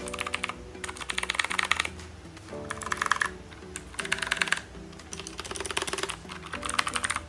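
Typing on a Leaven budget mechanical keyboard: about six quick runs of rapid key clicks with short pauses between them.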